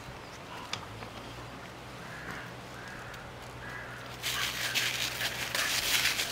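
A crow cawing faintly three times. About four seconds in, a louder crackling rustle sets in.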